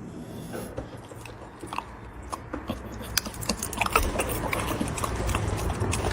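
Chewing and biting: a run of irregular crunchy clicks that gets busier and louder about three seconds in.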